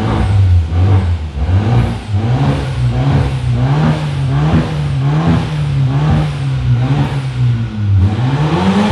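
Heavy bass music played loud through a car's sound system, a deep bass line swooping up and down about twice a second with a steady beat.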